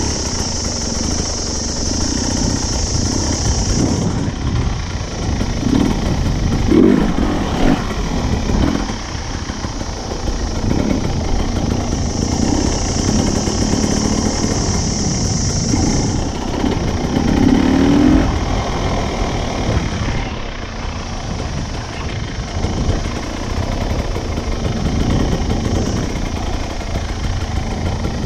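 Dirt bike engine running while riding, its revs rising and falling, loudest about a quarter and about two-thirds of the way in. A high steady buzz comes and goes in the background.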